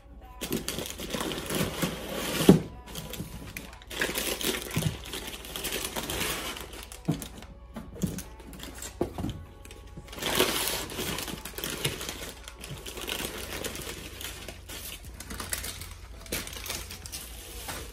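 Crumpled brown packing paper rustling and crinkling as it is pulled out of a cardboard parts box, then a clear plastic bag crinkling as a part is handled. A few sharp knocks on the workbench, the loudest about two and a half seconds in.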